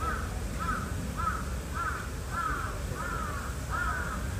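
Crow cawing in a steady series, about seven rising-and-falling caws, the later ones slightly drawn out.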